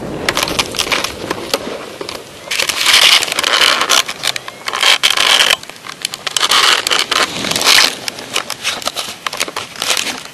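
Paraglider wing fabric and lines rustling and crackling in irregular loud bursts with sharp clicks as the wing comes down and collapses onto the grass after landing.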